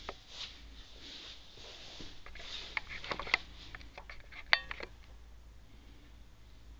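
Cats scuffling around a doorway: scattered light clicks and taps, with one short squeak about four and a half seconds in.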